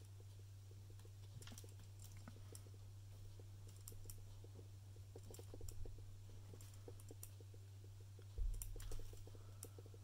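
Parker Jotter ballpoint pen writing on a small lined notebook: faint, irregular ticks and scratches of the pen tip on the paper over a steady low hum. A dull low thump near the end.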